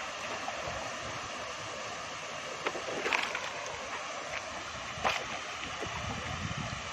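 River water sloshing around a bamboo raft as it is poled along, with a few short sharp splashes about three and five seconds in.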